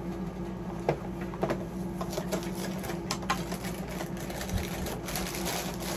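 A cardboard cereal box being opened and its inner plastic bag handled, with scattered crackles and snaps and a denser crinkling about five seconds in. A steady low hum runs underneath.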